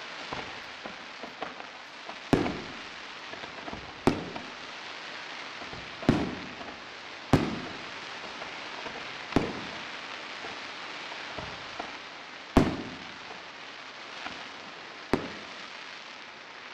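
Aerial firework shells bursting: seven loud bangs a second and a half to three seconds apart, each trailing off in a rolling echo. Smaller pops fall between them, over a steady hiss.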